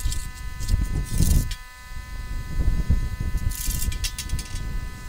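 Heavy steel channel beams being shifted and set down on dirt, with a scrape or clank about a second in and again a little past halfway, over a steady buzzing hum.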